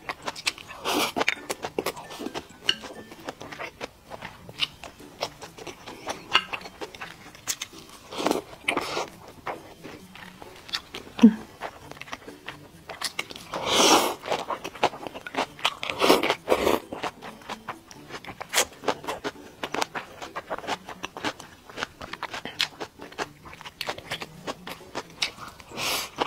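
Close-miked eating sounds: chewing and wet mouth clicks with a few louder slurps, as rice, spicy boiled pork slices and bean sprouts are eaten with chopsticks.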